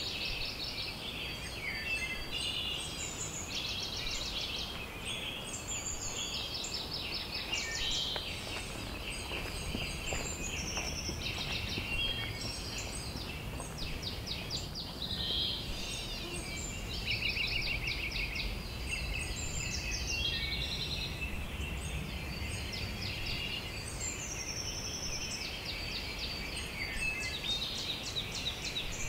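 Several songbirds singing at once, a dense outdoor chorus of rapid trills and repeated high chirps, over a steady low background rumble.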